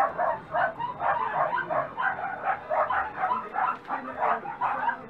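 Dachshund puppies yipping in play: a rapid, unbroken run of short high yips, about three a second.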